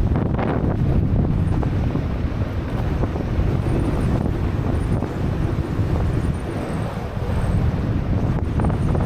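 Wind buffeting the microphone in a steady, gusting low rumble.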